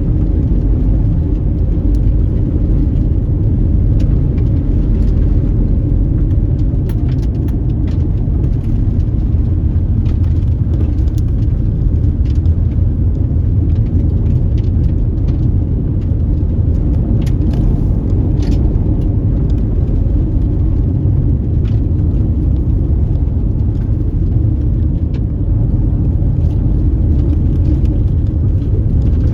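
Car on the move: a steady low rumble of engine and road noise, with scattered faint ticks.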